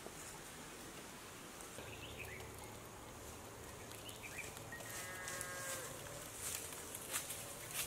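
A distant animal's long, low call, faint under outdoor ambience, with a couple of short high chirps. From about five seconds in, sharp dry clicks and crackles grow louder toward the end.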